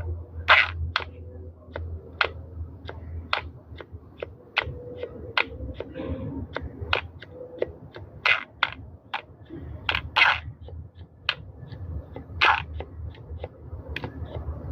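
A long run of sharp clicks and knocks at uneven spacing, about two or three a second, over a low hum that fades after the first few seconds.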